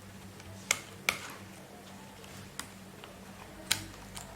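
Small sharp plastic clicks, four in about three seconds, as the keyboard ribbon cable is handled and fitted back into its connector in a Lenovo ThinkPad T460 laptop, over a faint steady low hum.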